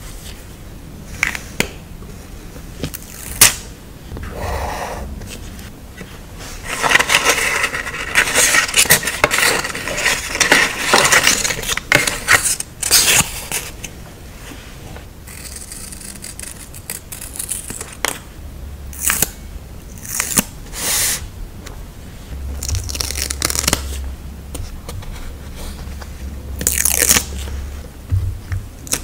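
Close-miked ASMR sticker-journaling sounds: paper and sticker sheets being handled, rustling and scraping, with scattered sharp taps and clicks. The handling is busiest from about seven to thirteen seconds in.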